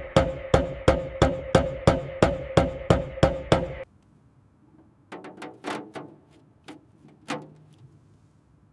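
Rapid, evenly spaced hammer blows on ringing metal, about ten in just under four seconds, which stop abruptly. A few scattered lighter knocks and clicks follow.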